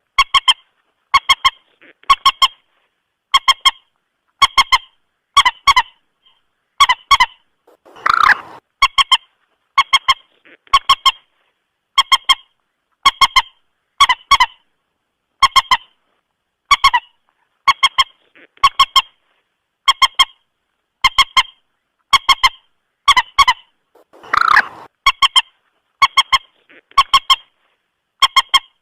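Mandar batu (common moorhen) lure call: short clipped notes in pairs and triplets, repeating about once a second, with a longer, louder, harsher call about 8 seconds in and again about 24 seconds in.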